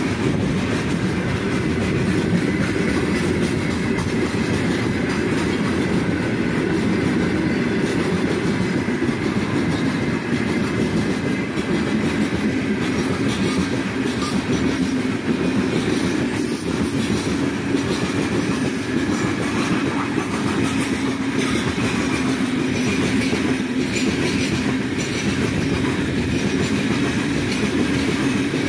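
Freight train wagons rolling steadily past, a continuous rumble of steel wheels on rail with occasional clacks.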